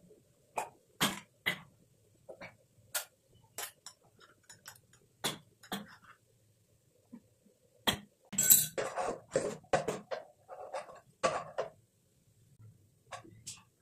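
Kitchen utensils clicking and knocking against a granite-coated wok and a plastic jar of shrimp paste: scattered sharp taps, growing into a quick run of knocks and scrapes about two-thirds of the way through.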